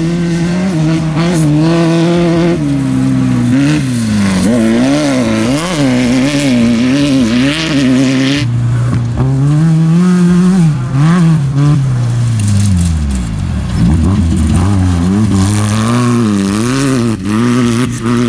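Off-road race vehicle's engine running hard, its pitch rising and falling again and again as the throttle is worked over rough ground, dropping lower about three quarters through before climbing again.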